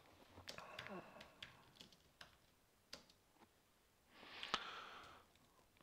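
Faint, irregular keystrokes on a computer keyboard as text is typed. A short murmured voice comes near the start, and a soft hiss lasting about a second comes about four seconds in.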